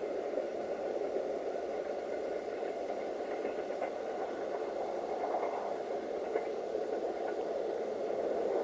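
Diesel train running away from the listener along the line, a steady rumble of engine and wheels.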